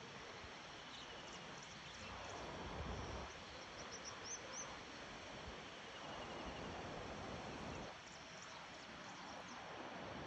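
Faint countryside ambience: a steady hiss, a short run of quick high chirps about four seconds in, and faint insect trills.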